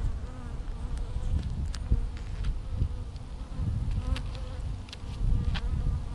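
Honeybees buzzing steadily around an open hive during an inspection, a constant hum, with a few light clicks.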